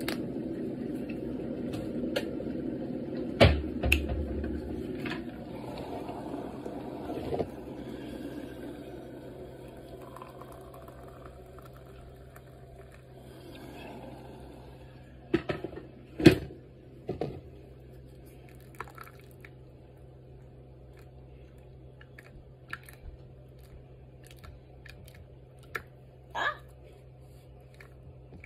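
Kettle heating with a low rumbling hiss that dies away over the first several seconds. A few sharp knocks and clinks follow, mostly in a cluster about halfway through and once more near the end.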